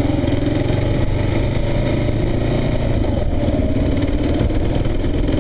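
Kawasaki KLR motorcycle's single-cylinder engine running steadily under way at an even speed, with a constant rush of wind and road noise.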